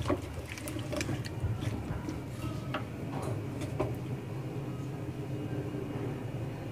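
A spoon stirring chicken and potatoes in an aluminium pot, clinking and scraping against the metal about ten times in the first four seconds, then stopping. A steady low hum runs underneath.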